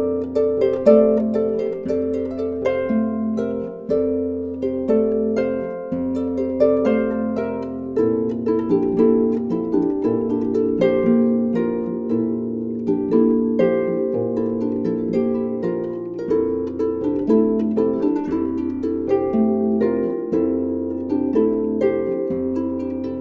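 Instrumental background music: a quick run of plucked notes ringing out over held low bass notes.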